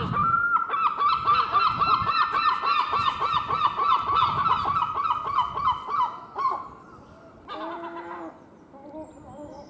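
Gulls calling: a long, fast series of repeated calls at about four a second, from about a second in until past six seconds, then a few lower, shorter calls near the end.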